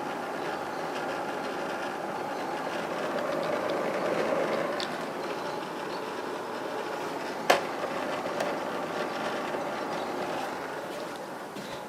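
Electric fan running with a steady whir and a faint rattle, swelling and easing slightly; a single sharp click about seven and a half seconds in.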